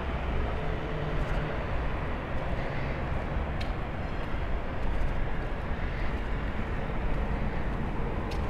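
Steady low rumble of outdoor street background noise, with a few faint ticks.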